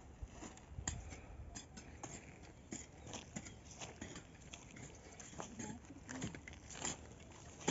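Footsteps crunching over dry, stony, clumpy soil: irregular crunches and small clicks of clods and pebbles underfoot.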